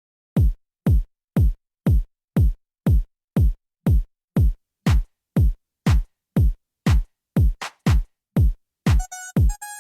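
Electronic music: a drum-machine kick drum thumping steadily at about two beats a second, each hit a deep thud that drops in pitch. Near the end a short synth melody and bright ticking hi-hats join the beat.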